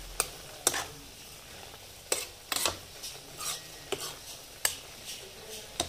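A cooking utensil knocking and scraping against a pan in about eight sharp, irregular strokes while stirring, over a faint frying sizzle.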